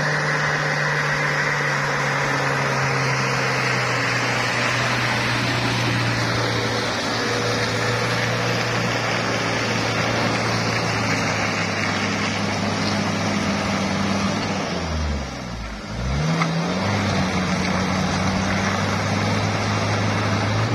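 Mini pickup truck engine running hard at high, steady revs as the truck pulls through deep mud. About fifteen seconds in the revs drop sharply, then climb back up and hold.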